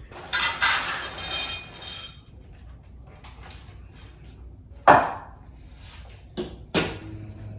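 Dog food poured from a container into a bowl for about two seconds. Then a sharp knock about five seconds in and two clinks near the end as stainless steel dog bowls are set into a wooden raised feeder.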